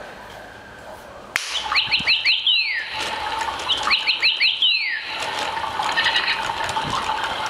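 Sound-activated toy bird playing its recorded birdsong: it starts suddenly about a second in with two quick runs of falling chirps, one repeating the other, then softer twittering.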